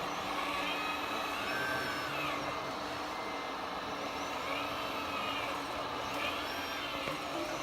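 Radio-controlled scale model construction machines, a dump truck and an excavator, running: a steady mechanical hum with several short whines that rise and fall.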